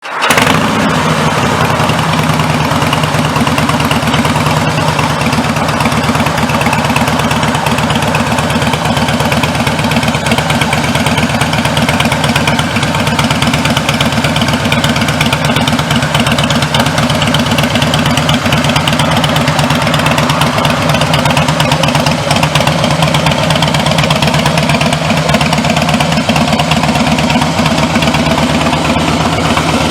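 Harley-Davidson FLS Softail Slim's 45-degree V-twin engine idling steadily with a loping, even pulse.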